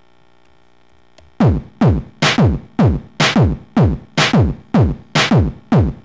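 An industrial-techno loop of sampled electronic drum hits, stitched together from WAV samples by a PHP script. It starts about a second and a half in: heavy thuds, each dropping sharply in pitch, two to three a second in an uneven, stuttering rhythm, with a low steady hum before it begins.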